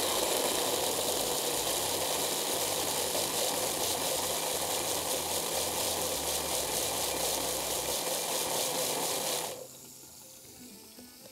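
Electric hand blender's chopper attachment running steadily as it purées a sauce in its bowl, then cutting off about two seconds before the end.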